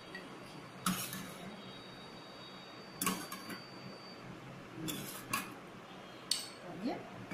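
A metal spoon clinks against a glass serving bowl and a metal pot while milk is ladled, five or so sharp clinks. The first leaves a faint high ringing for a few seconds.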